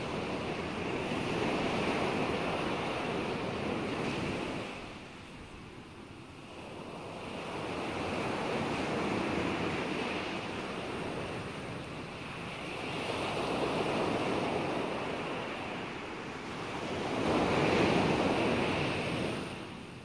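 Rushing noise of ocean waves, swelling and fading in slow surges about every four to five seconds, with a quieter dip about five seconds in.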